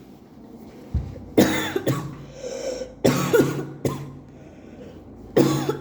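A woman's sneezing fit from allergies: three loud, explosive sneezes, about a second and a half in, about three seconds in, and near the end.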